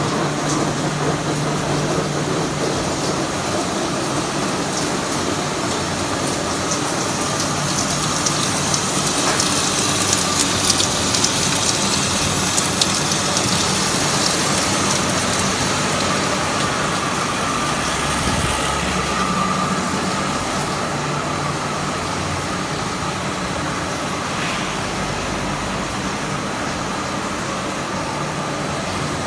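Steady noise of factory processing machinery running, with a low hum and a few light clicks and rattles about a third of the way in.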